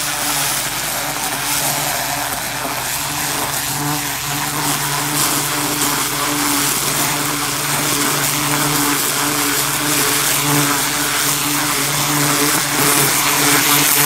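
Pressure washer running steadily, its motor humming under the hiss of the water jet blasting into loose soil, tilling it and tearing out weeds.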